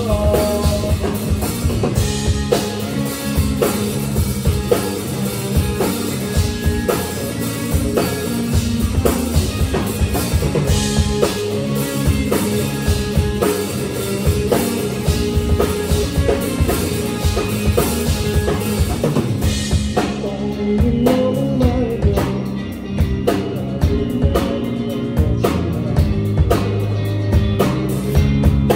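Live indie rock band playing an instrumental passage on electric guitar, bass guitar and drum kit, with a steady drum beat. About twenty seconds in, the bright, hissy top end drops away while the beat and guitars carry on.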